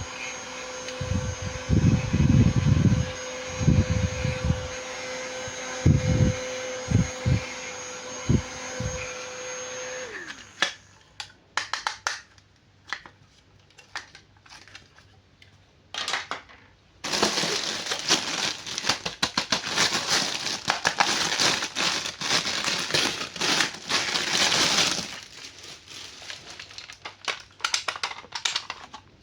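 A small motor whirring steadily with a few low thumps, its pitch sliding down as it stops about ten seconds in. Then clicks, a long stretch of crinkling, and more clicking, like packaging being handled.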